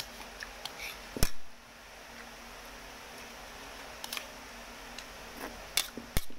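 A spoon clinking and scraping against a bowl of noodles a few times. The loudest clink comes about a second in and rings briefly; smaller clicks follow near the end.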